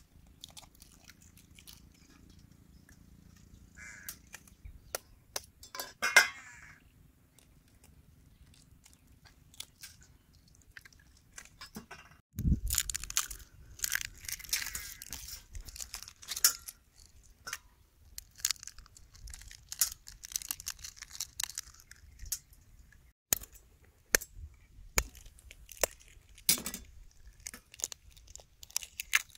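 Boiled balut (fertilised duck egg) shells being cracked and peeled by hand over a steel tray. Scattered sharp clicks and crackling as the shell breaks and bits drop onto the metal, with denser crackling about halfway through.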